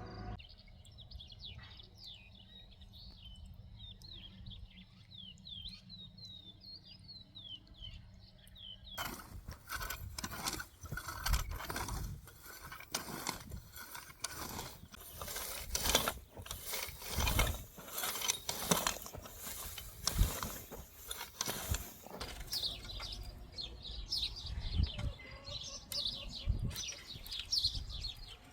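Small birds chirping in quick, short notes. About nine seconds in, the sound changes abruptly to close, irregular clicks, knocks and scraping, with bird chirps coming back near the end.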